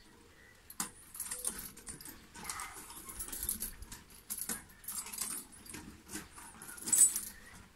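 Metal chains of a tire swing clinking and rattling as the swing moves, with scattered clicks and a sharper jangle about seven seconds in.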